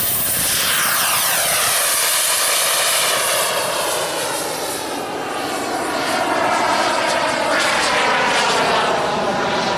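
Radio-controlled model jet at full power, taking off and climbing steeply away: a steady rushing roar whose pitch sweeps down over the first few seconds, dips slightly in level about halfway, then sweeps back up near the end.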